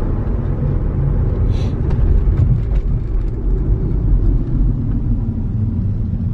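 Steady low rumble of a BMW car's engine and road noise inside the cabin while driving, with a few light clicks between about one and a half and three seconds in.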